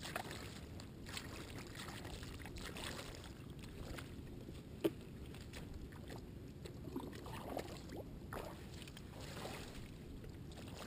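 Faint splashing and sloshing of shallow lake water as a jug is dipped and water is poured over a landed carp, with one sharp click about five seconds in.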